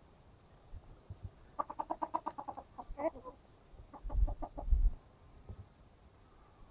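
Chickens clucking: a quick run of short clucks about a second and a half in, a louder call near three seconds, then another run of clucks over a low rumble.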